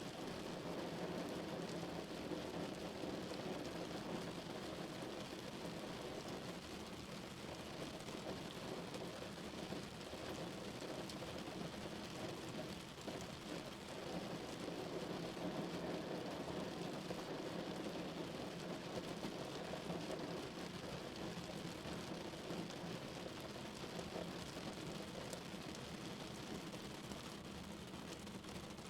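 Steady rain falling on a car, heard from inside the cabin as an even, unbroken hiss with a low, muffled body.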